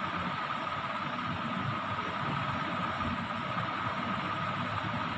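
Steady mechanical hum and whir with a constant thin whine, even and unbroken throughout: a running machine such as a motor or appliance in the room.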